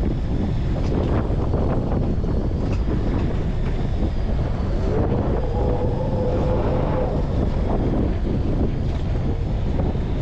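Wind buffeting the microphone over the steady rumble of a fishing boat at sea. A faint steady whine comes in for a few seconds around the middle.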